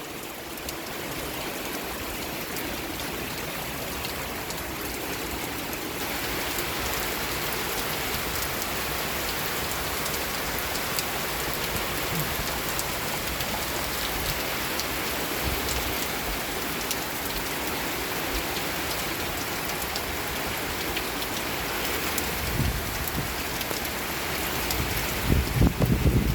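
Heavy rain pouring down in a steady hiss, growing a little heavier about six seconds in. A few low thumps come near the end.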